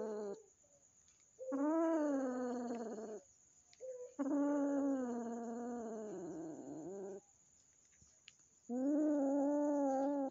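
A cat yowling in long, drawn-out calls. The end of one call comes in the first half second, then three more follow, each lasting one and a half to three seconds, with short silences between. The second of these dips in pitch near its end.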